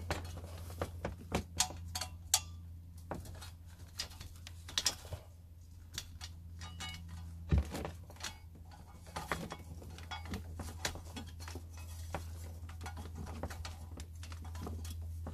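Clear plastic air hose being wound by hand onto a hose reel: irregular light clicks, taps and rustles of the tubing against the reel, with one louder knock about halfway, over a steady low hum.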